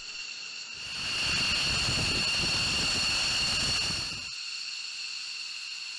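F-15 fighter jet's engines running at taxi power: a steady high whine over a rumble. The rumble cuts out about four seconds in, leaving the whine.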